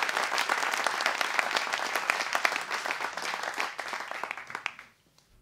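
Audience applause, a dense patter of many hands clapping, fading away to near silence near the end.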